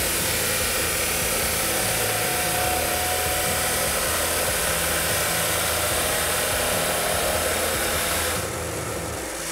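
Ridgid 14-inch abrasive cut-off saw (chop saw) with its 15-amp motor, the abrasive wheel grinding steadily through cast iron pipe with a loud, hissing grind. About eight and a half seconds in the sound drops in level and thins.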